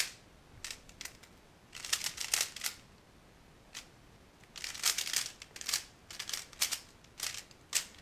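Plastic 3x3 Rubik's cube being turned quickly by hand, its layers clacking in rapid flurries: one burst about two seconds in, then a longer run of turns from about halfway to the end, as when scrambling the cube.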